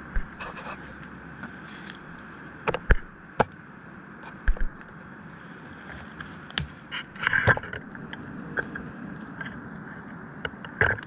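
Knocks, clicks and scrapes of camping gear being handled, a few of them sharp and loud, over a steady rushing background noise.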